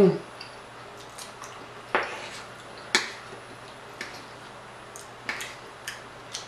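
A person eating close to the microphone, chitterlings and rice: a scattering of short, sharp wet clicks and taps, roughly one a second.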